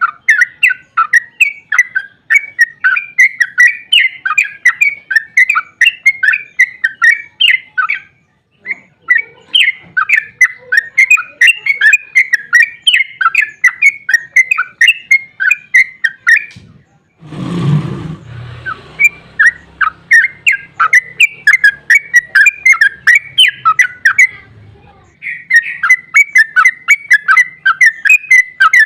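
Yellow-vented bulbul (trucukan) singing a long, rapid chattering song of short repeated notes, several a second, broken by brief pauses about eight and about seventeen seconds in. A muffled thump with a short burst of rustling noise comes just after the second pause, and the song resumes more faintly for a few seconds.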